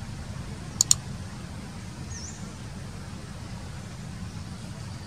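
Steady low outdoor rumble. Two sharp clicks come close together about a second in, the loudest sounds here, and a faint, brief high chirp follows about two seconds in.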